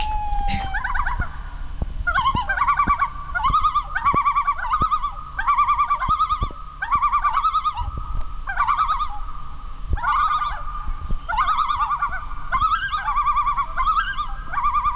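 Recorded bird calls played from an iBook G4 laptop's speakers: repeated bursts of rapid chattering notes, one or two bursts a second with short pauses, over a steady high tone.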